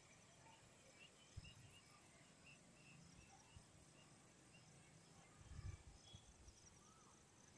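Faint dusk insect chorus, a steady high chirring, with a run of short repeated chirps early on and a single short bird-like call near the end. A brief low rumble comes about two-thirds of the way through.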